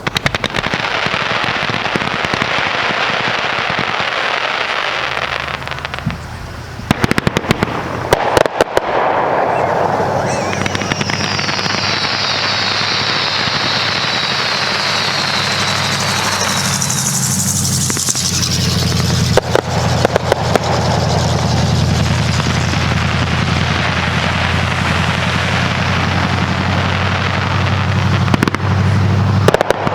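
A fireworks display going off continuously, with crackling and rapid bangs and a dense volley about seven to nine seconds in. Near the middle a long whistling firework falls slowly in pitch, followed by a higher rising whistle.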